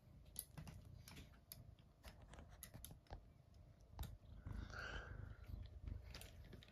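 Faint scattered clicks and light knocks of a small RC crawler truck being handled and picked up, with a short higher-pitched sound about five seconds in.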